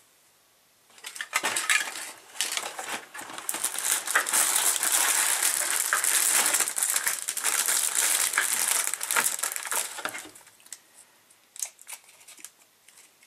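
Food packaging crinkling and rustling as it is opened, with scattered small clicks. It starts about a second in and stops about ten seconds in.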